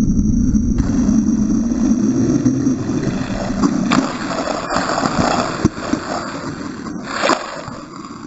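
Longboard wheels rolling fast on asphalt with wind rushing over the helmet camera's microphone. From about four seconds in, the plastic slide pucks on the rider's gloves scrape along the road as he goes hands-down into a bad Coleman slide, with a few sharp knocks.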